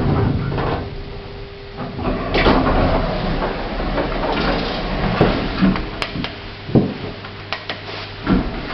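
Modernised 1980s Otis passenger lift running during a ride: a string of mechanical clicks and knocks, with a steady hum through the first two seconds.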